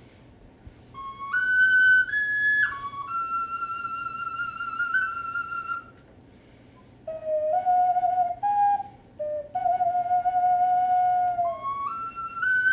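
Two clay wind instruments in call and response: a higher-pitched one plays a phrase of held notes stepping up and down, falls silent, and a lower-pitched one answers with its own phrase. The higher one comes back in near the end.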